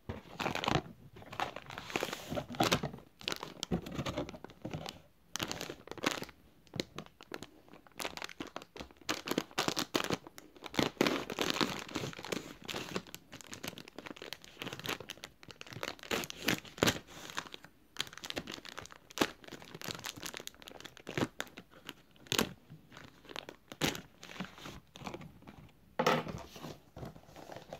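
Cardboard corn starch box being opened by hand: the flaps pulled back and the paper inner bag crinkling and tearing as it is worked and cut open with a knife, in a long run of irregular rustles and crackles.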